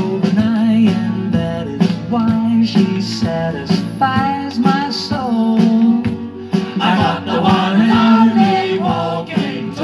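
A 7-inch 45 rpm vinyl single playing on a vintage Ultra music centre's BSR record changer, heard through its speakers: a pop-rock song with singing, guitar and a steady beat.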